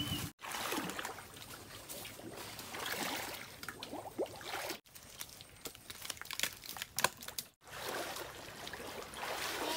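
Shallow muddy canal water trickling and splashing softly as people wade through it and grope in the bank holes with their hands, with scattered small clicks and knocks.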